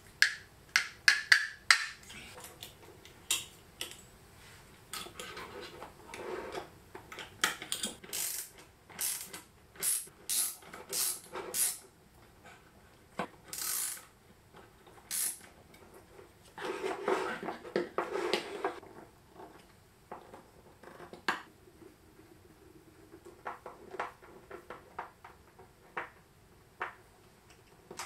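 A screwdriver and small metal and plastic parts handled on a wooden board while a switch is screwed onto a small wooden stand: scattered clicks, taps and short scrapes, with a longer scraping sound about 17 seconds in.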